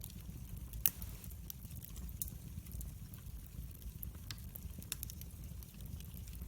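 Wood fire crackling in a fireplace: scattered sharp pops and snaps over a low, steady rumble of the flames, with one louder pop about a second in.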